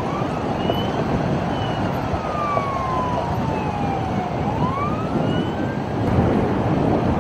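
Vehicle siren wailing slowly: its pitch falls over several seconds, then rises again about four seconds in. A steady rumble of traffic noise sits beneath it.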